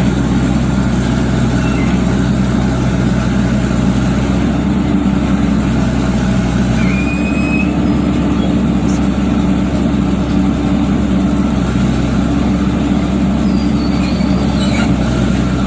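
Diesel engine of heavy farm and construction machinery running steadily, its note shifting slightly about seven seconds in.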